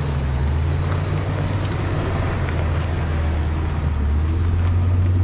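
Ford Excursion crawling slowly over a rocky dirt trail: a steady low engine rumble with the crunch and small clicks of tyres rolling over gravel and stones, growing a little louder as the truck draws alongside near the end.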